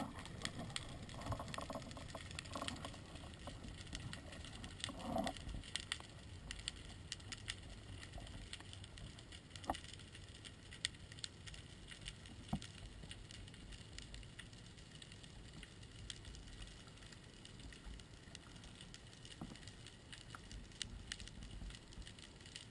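Underwater ambience: a faint, steady crackle of countless tiny clicks, with a muffled bump about five seconds in.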